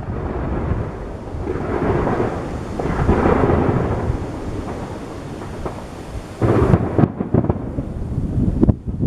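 Aerial fireworks bursting, their booms running together into a continuous thunder-like rumble. About six and a half seconds in, a quick run of sharp bangs and crackles.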